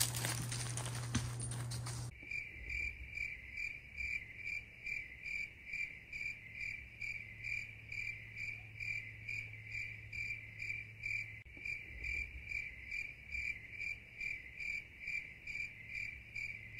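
Insect chirping steadily in an even rhythm of about two chirps a second, starting abruptly about two seconds in after a short stretch of broad noise.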